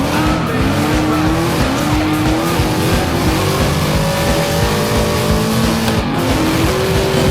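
Vehicle engines revving hard, their pitch repeatedly rising and falling, with tyres squealing and skidding as in burnouts and drifting stunts.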